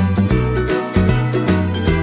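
Background music: an upbeat Christmas-style track with jingle bells on the beat over a bass line.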